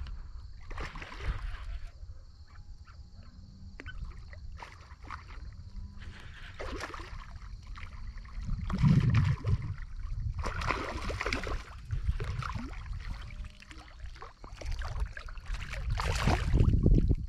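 A hooked largemouth bass splashing and thrashing at the water's surface as it is played in toward the bank. Near the end comes a louder splash as the fish is released back into the water by hand, all over a low rumble.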